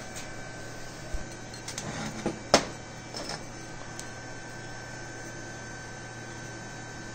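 A few sharp knocks and clinks of steel lathe chuck parts being handled, the loudest about two and a half seconds in, over a steady electrical hum.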